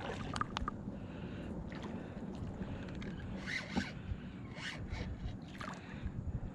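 Fishing reel being wound in on a hooked fish, with several short scratchy bursts at irregular moments over a steady low background.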